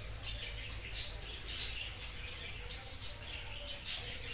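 Birds chirping: two short high chirps about a second in and another near the end, over a thin steady high-pitched tone.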